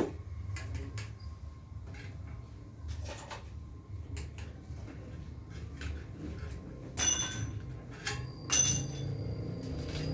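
Scattered clicks and knocks of hands and tools working on a bicycle during a puncture repair, over a low steady rumble. About seven and eight and a half seconds in come two louder, longer noises with a high ringing edge.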